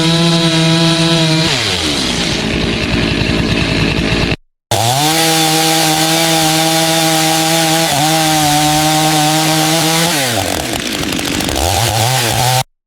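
Chainsaw engine running at high revs, then dropping in pitch as the throttle is let off. The sound cuts out briefly about four seconds in and comes back at full revs, runs steady, then falls off again and picks up once more near the end.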